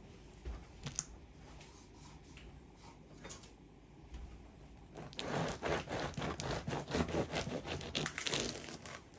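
A loaf is set down on a wooden cutting board with a light knock. Then, about five seconds in, a bread knife saws through the hard crust of a sourdough loaf, which crunches and crackles with each rapid stroke.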